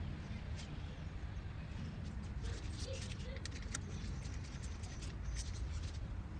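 Bobcat 732 skid steer's gasoline engine running steadily as a low rumble, with faint scattered clicks over it.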